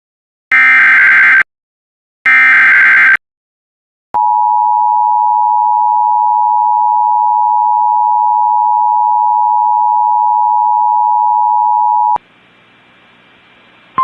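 Two Emergency Alert System SAME header bursts, each about a second of harsh, buzzy digital data screech, followed by the EAS attention signal: a steady two-note tone held for about eight seconds that cuts off suddenly into faint hiss. Together they mark the start of a new emergency alert.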